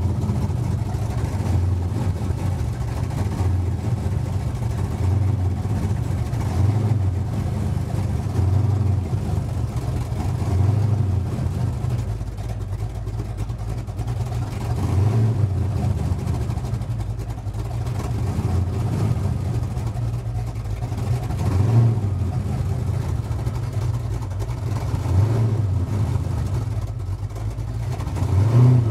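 Supercharged small-block Chevy V8 running at idle after a cold start, heard from inside the cab. The idle swells and sags every few seconds, the surge the owner notices and can't explain.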